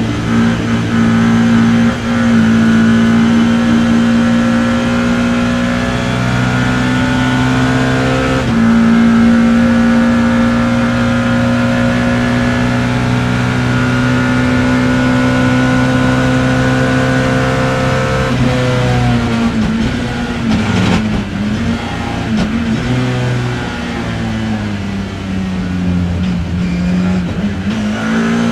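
Onboard sound of a BMW E30 M3 race car's four-cylinder engine under hard acceleration. It upshifts twice in the first ten seconds, then runs at high revs for a long stretch. About two-thirds in it drops through the gears under braking, and the revs rise and fall unevenly after that.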